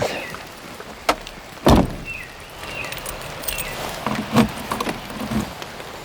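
Someone getting out of a Land Rover in the rain: a sharp latch click, then a heavy door thud, followed by a few softer knocks, over steady rain.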